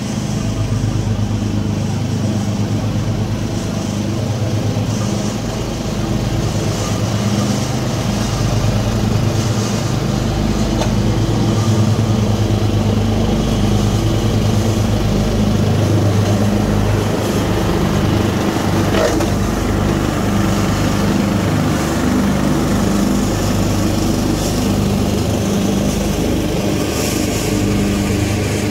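Small gasoline engines of a Craftsman 12.5 hp lawn tractor and a 13.5 hp Swisher pull-behind mower running at a steady speed.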